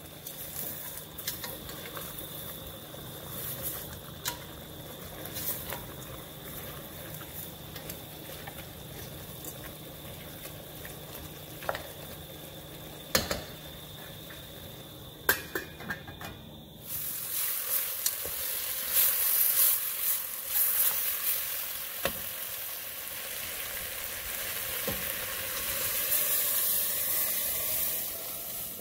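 Goat meat sizzling in a little oil in a stainless pressure-cooker pot as a wooden spatula stirs and scrapes it, with a few sharp knocks of the spatula against the pot. About 17 s in it changes abruptly to a louder hissing rush as hot water is poured over the meat to cover it for pressuring.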